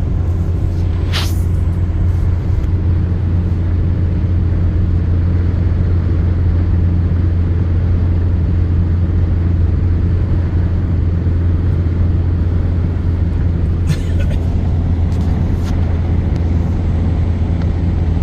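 Steady rain under a loud, unbroken low rumble, with a brief sharp hiss about a second in and a few more near the end.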